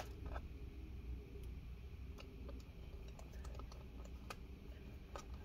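Faint, irregular small clicks and ticks of a small Torx screwdriver turning a T5 screw into a laptop's bottom cover, with one sharper click at the very start.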